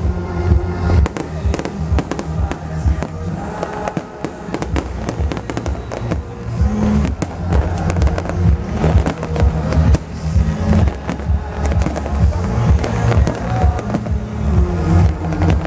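Aerial fireworks going off in quick succession, many sharp bangs and crackles, over loud electronic dance music with a heavy steady bass.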